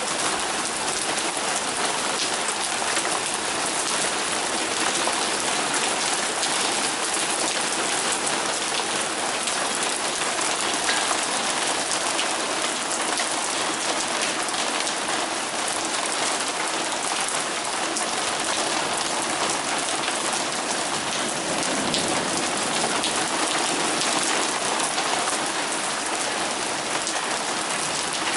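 Heavy rain pouring steadily, a dense even hiss of drops hitting surfaces.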